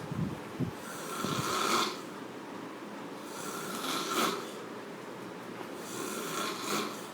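A sleeping person snoring heavily, with loud snores about two to three seconds apart.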